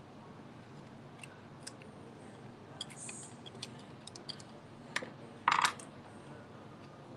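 Scattered light clicks and small metallic taps as a cleaning tool works among the steel burrs of a Mahlkönig EK43 coffee grinder, which is switched off. A louder clatter comes about five and a half seconds in.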